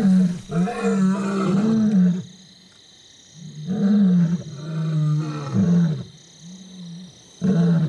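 Male lion roaring: a series of deep grunting roars, one after another, broken by a pause of about a second and a half near the middle.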